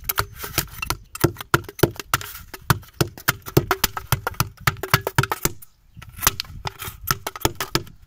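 Rapid sharp metal knocks, about four or five a second with a short pause near the end, as the bottom of an aluminium beer can is beaten out from inside with a rod and hammer, doming it outward into a rounded bottom.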